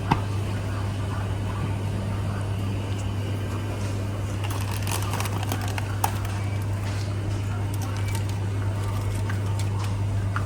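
Minimarket ambience: a steady low electrical hum with faint background chatter and rustling, and two sharp clicks, one just after the start and one about six seconds in.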